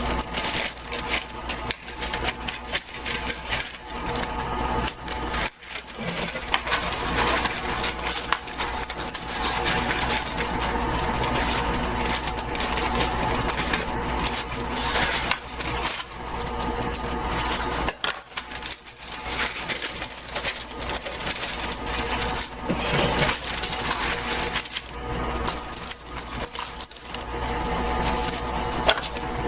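Parchment paper rustling and crinkling as it is handled, creased and cut, with irregular crackles and clicks throughout.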